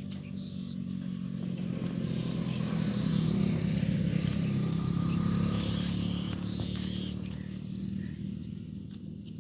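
A motor vehicle passing close by: its engine grows louder over the first few seconds and then fades.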